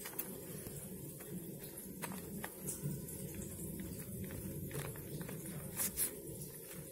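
Glue stick rubbed over a sheet of paper, giving faint scrapes and light clicks, over a steady low background hum.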